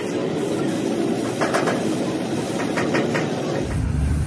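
Spray-painting noise: a steady mechanical running, likely the air compressor feeding the spray gun, with short hissing bursts from the spray gun. About three and a half seconds in, the sound changes and a deeper low hum comes in.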